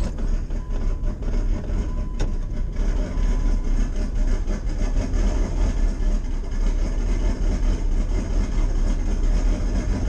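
Turbocharged 1988 Chevrolet Caprice engine idling steadily, heard from inside the cabin. There is a single click about two seconds in.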